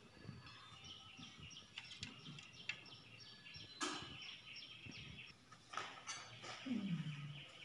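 Faint chirping of small birds, with a few soft taps from hands handling dough on a plastic plate, the loudest about four seconds in. A short low voice sound near the end.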